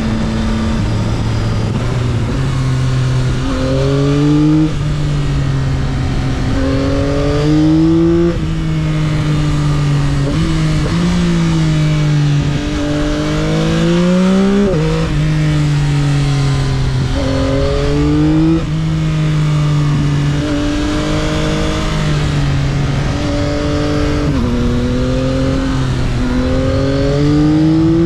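2022 Yamaha XSR900's inline three-cylinder engine on its stock exhaust, heard from the rider's helmet, rising and falling in pitch again and again as it pulls through the bends and eases off, with one long climb that drops sharply about halfway. A steady rush of wind and road noise runs underneath.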